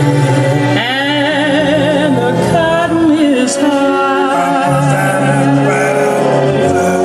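Recorded music with a singing voice, sung with a strong vibrato over sustained accompaniment, played back through a Rogers LS3/5a 15-ohm bookshelf speaker.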